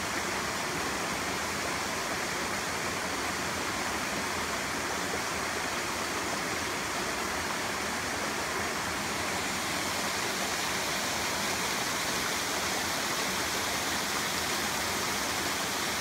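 Shallow rocky stream running over boulders and stones: a steady, unbroken rush of water.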